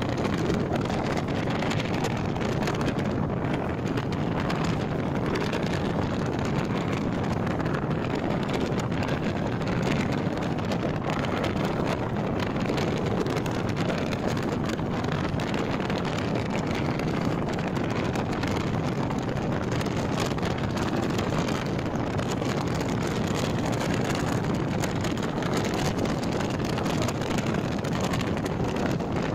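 Passenger train running at speed: a steady rumble of the coach on the track mixed with wind buffeting the microphone held outside the coach.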